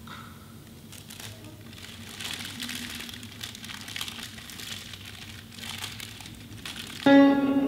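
A sheet of paper being crumpled and crinkled in the hands, crackling irregularly. Near the end a single plucked string note, likely a guitar, starts loudly and rings on as music begins.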